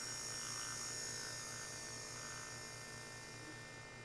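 Small permanent-magnet electric motor running with its rotor spinning, held in place by hand: a steady high whine over a regular low pulsing, getting slightly quieter toward the end.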